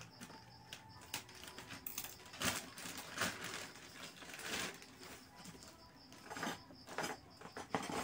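Plastic mailer bag rustling and crinkling in irregular bursts as it is pulled open and a package is drawn out of it.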